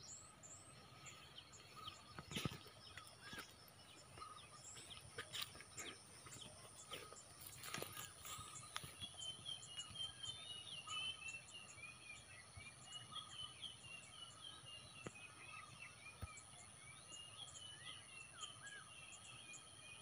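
Faint outdoor ambience of small birds chirping, busiest in the second half, over a steady high insect drone with regular ticking. A few soft knocks come in the first half.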